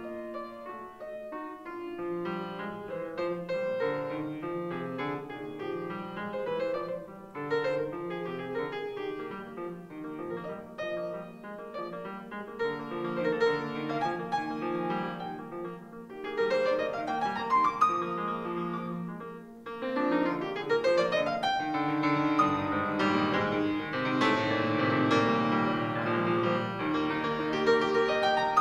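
Solo piano piece played on a Petrof grand piano: a quieter stretch of moving notes, two fast rising runs a little past halfway, then louder, fuller playing toward the end.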